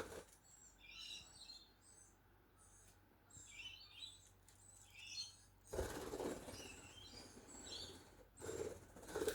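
Budgerigar chattering in short, chirpy warbles that come in small clusters every second or so, with a couple of louder muffled noises just past the middle and near the end.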